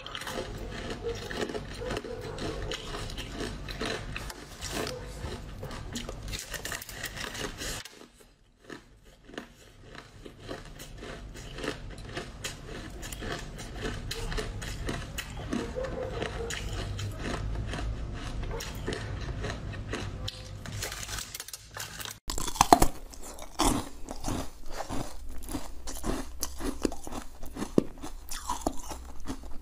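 Biting and chewing corn on the cob (black, then purple corn), a dense run of small crunches as kernels are bitten off and chewed. About three-quarters of the way through it switches abruptly to louder, sharper bites.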